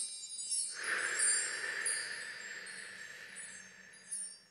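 A long breath blown out through the mouth, starting about a second in and fading away over about three seconds, over a twinkling wind-chime sound effect.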